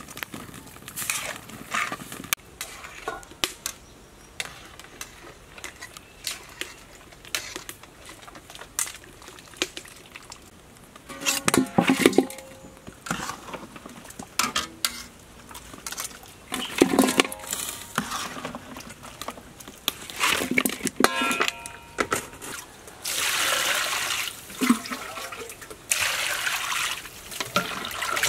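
Metal pot and utensils clanking and ringing several times while boiled oxtail pieces are handled. Near the end comes a steady rush of water being poured and splashing over the meat for rinsing.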